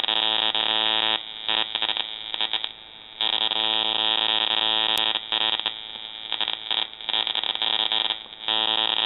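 A high-voltage arc from an ignition coil driven by a 555 timer and MOSFET, giving a loud buzz at the low drive frequency. The buzz runs in stretches: it drops out a little after a second in, sputters, comes back steady about three seconds in, breaks up again through the second half, and returns steady near the end.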